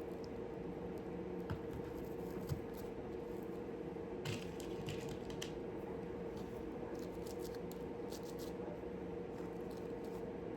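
Faint scattered clicks and scratches of small nails being handled and pushed by hand into concrete-coated styrofoam, over a steady low hum.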